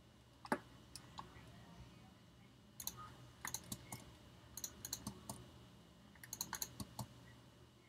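Light clicking of a computer keyboard and mouse, in short irregular clusters.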